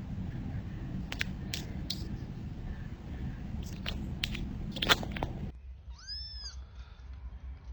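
A kitten meowing once, a short call that rises and falls, about six seconds in. Before it comes a low rumbling noise with several sharp clicks, which cuts off suddenly.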